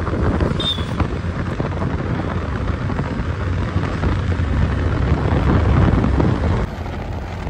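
Wind buffeting the microphone on a moving scooter, a steady heavy rumble, with engine and road noise beneath it. A brief high beep sounds about half a second in.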